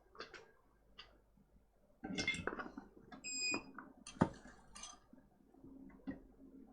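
Small metal tools clicking and clinking on a workbench, with one short, high electronic beep about three seconds in.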